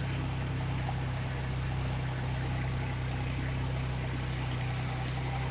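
New Holland Workmaster 75 tractor's diesel engine running steadily under load as it pulls a five-shank chisel plow through the soil. A steady low hum, with an even rushing hiss above it.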